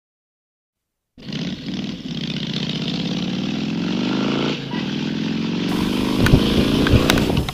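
Motorcycle engine sound effect on the soundtrack, revving up twice with its pitch climbing each time. Near the end, rock music with drum hits comes in over it.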